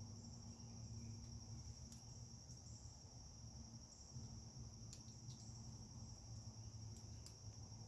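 Faint, steady, high-pitched chorus of insects, a continuous trill, over a low steady rumble, with a few light ticks.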